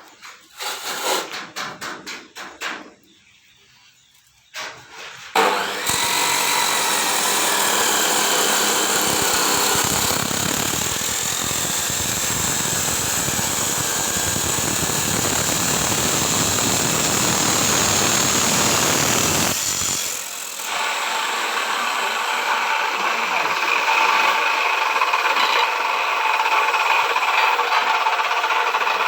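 A few knocks, then an abrasive cut-off machine with a cutting wheel starts about five seconds in and runs loudly while cutting. After a brief dip at about twenty seconds it carries on with a steadier, whining motor sound.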